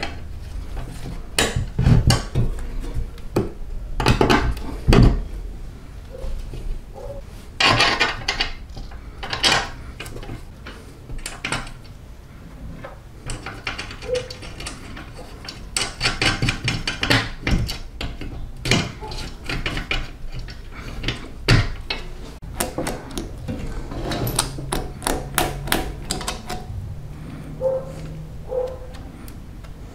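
Irregular clicks, taps and clinks of small metal parts being handled and fitted onto a push reel mower's side plate: a washer, a spring and a drive gear going onto their shafts.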